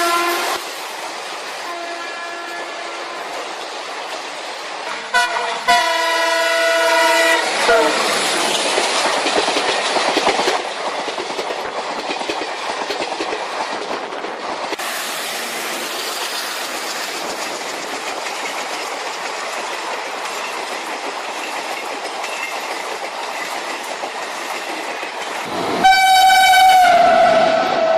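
Train horn sounding a multi-note chord: briefly and faintly about two seconds in, then a loud blast of about two seconds, and another near the end. Between the horns there is a steady rushing noise of a train running.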